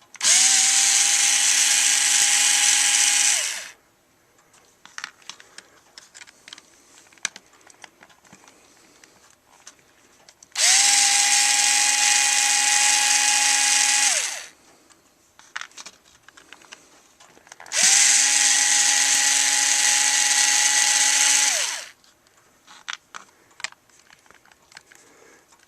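Ryobi HP43L 4-volt cordless screwdriver running three times, about three and a half seconds each, backing screws out of a plastic tool housing. Each run holds a steady pitch and winds down as the trigger is released. Light clicks and handling sounds fall between the runs.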